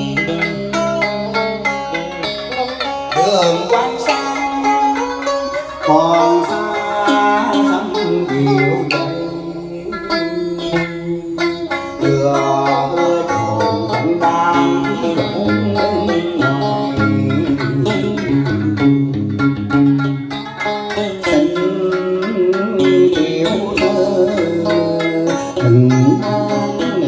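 Vietnamese cải lương accompaniment: an electric guitar and a đàn sến playing plucked melody lines with sliding, bent notes.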